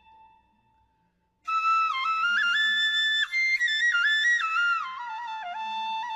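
Background music: a solo flute playing a slow melody of held, stepping notes, starting about a second and a half in after a brief near-silent pause.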